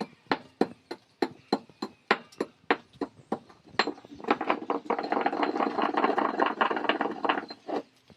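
Jowar grains being pounded in a mortar, with sharp, even strokes about three a second. About four seconds in, a dense rattling, scraping sound takes over for around three seconds.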